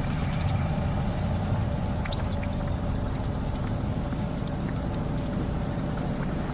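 AI-generated sound effect: a steady low rumble like traffic or engine noise, with a faint steady hum and scattered light clicks.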